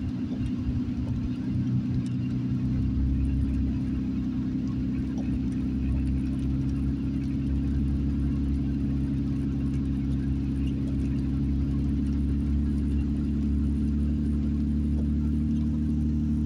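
Steady low drone of a car driving at an even speed, heard inside the cabin: engine and road noise with a constant hum that grows stronger a couple of seconds in.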